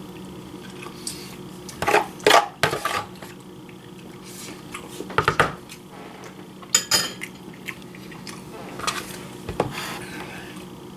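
Scattered light clinks and knocks of a plate, a metal spoon and containers handled on a kitchen counter, a few sharp taps in small clusters, over a faint steady low hum.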